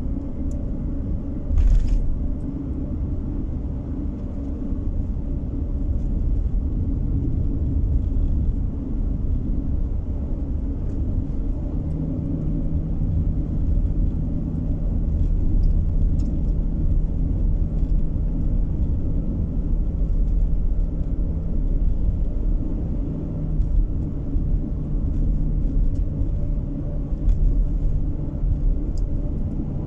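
Road noise of a moving car heard from inside: a steady low rumble of tyres and engine. A steady hum joins about twelve seconds in, and there is a short sharp knock about two seconds in.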